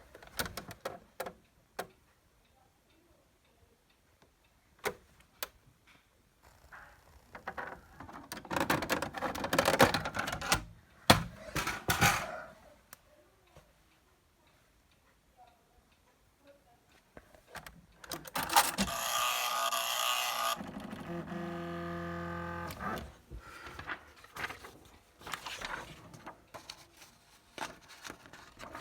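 Electronic typewriter at work: scattered sharp mechanical clicks and clacks, stretches of rattling print-mechanism noise, and a few seconds of steady motor whirr about two-thirds of the way through.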